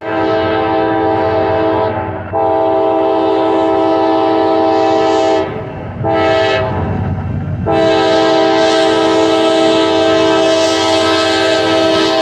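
CSX freight locomotive's multi-chime air horn blowing the grade-crossing signal: two long blasts, a short one, then a long one held on, over the low rumble of the train.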